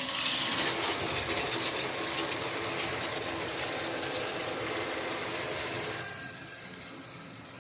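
Water spraying from a Traxx color-changing LED shower head as a steady hiss, easing off a little about six seconds in.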